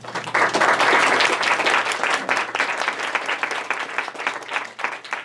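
Audience applauding: dense clapping that breaks out just after the start, is fullest in the first couple of seconds, then thins to scattered claps.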